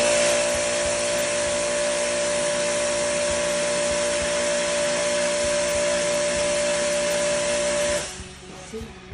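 Pressure washer running with a steady motor whine while its spray gun blasts a water jet into a split-type aircon's evaporator coil to wash the dirt out, with a steady hiss of spray; it cuts off abruptly about eight seconds in.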